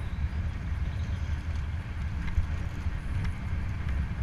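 Steady low rumble of wind buffeting the microphone of a helmet-mounted camera on a moving road cyclist, with a few faint ticks.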